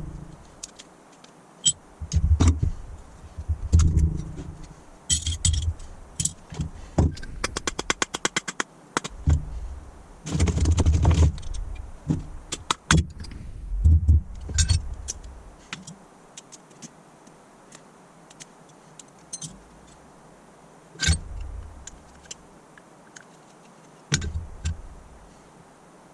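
Metal parts of a Holley four-barrel carburettor and hand tools clinking, scraping and knocking on a workbench as the carburettor is taken apart, with a quick run of rapid clicks about seven seconds in.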